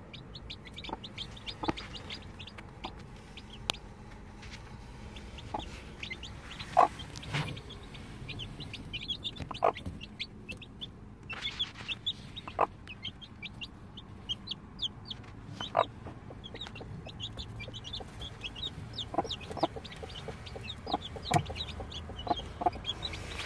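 Newly hatched chicks peeping in many quick, high chirps, while the broody mother hen clucks to them, with now and then a sharper tap or rustle in the nesting straw.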